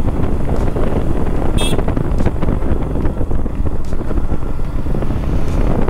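Motorcycle engine running while riding, with wind buffeting the microphone. A brief high chirp sounds about a second and a half in.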